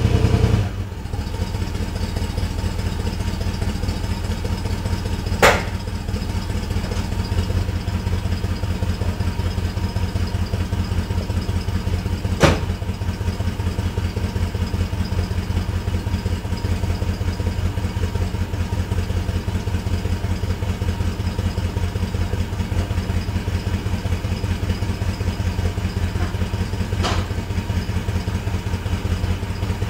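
1985 Ford Mustang GT's 5.0 V8 idling on its stock exhaust soon after a cold start, a steady slow rumble. The revs drop back just after the start. Two sharp knocks stand out, about five and twelve seconds in, with a fainter one near the end.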